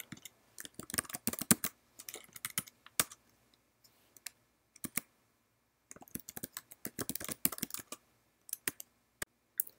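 Typing on a computer keyboard: quick runs of keystrokes in bursts, thinning to a few single taps in the middle and again near the end.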